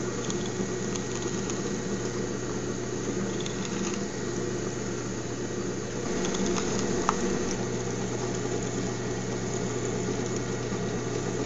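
Drill press motor running with a steady hum as its twist bit bores a notch into a small wooden cylinder, cutting across the grain.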